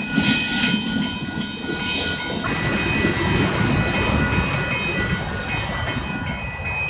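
Freight train cars rolling past: a steady rumble of steel wheels on rail with a faint clickety-clack and several thin, steady high tones above it.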